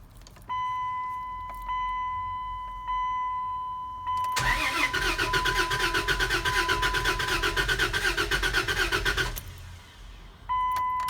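A 2001 Dodge Ram's 5.9-litre gasoline V8 is cranked on the starter for about five seconds with a rhythmic, pulsing churn. It stops without catching, so the truck does not start. Before and after the cranking a steady high-pitched dashboard warning chime sounds.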